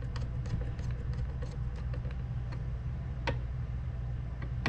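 Light, scattered metal ticks and clicks of a Phillips screwdriver turning a small screw snug into a CPU-cooler mounting bracket, with one sharper click a little past the three-second mark, over a steady low hum.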